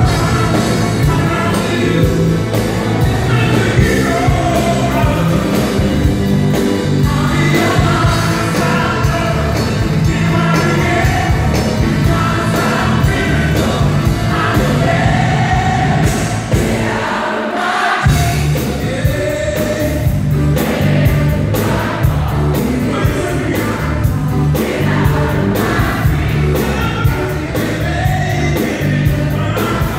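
Live pop band with a male lead vocalist singing. The bass and drums drop out for about two seconds just past halfway, then come back in.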